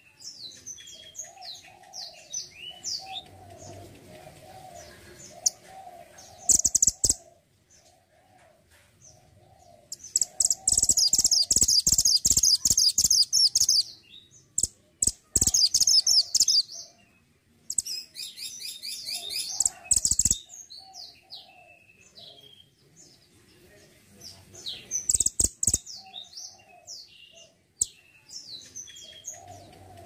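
A caged mantenan gunung singing: scattered high chirps broken by loud bursts of rapid chattering song, the longest lasting about four seconds near the middle.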